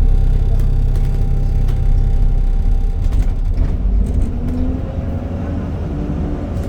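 ADL Enviro 400 Trident double-decker bus running with a steady low rumble and the whine of its engine cooling fan; about four seconds in the whine drops away and new tones slowly rise and fall in pitch.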